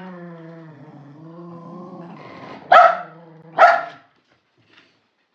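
A dog growling steadily while tugging at cardboard packaging, breaking into two sharp barks just under three seconds in, about a second apart; the growling stops soon after the second bark.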